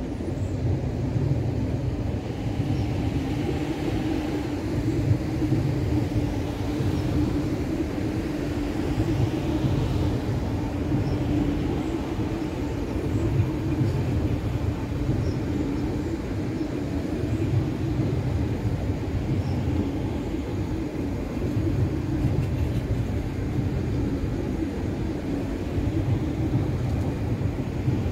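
MTR Q-Train electric multiple unit rolling past: a steady rumble of steel wheels on the track with a constant low hum.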